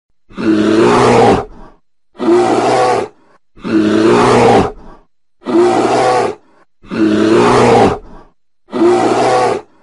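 Bear roaring: six roars of about a second each, repeated about every second and a half.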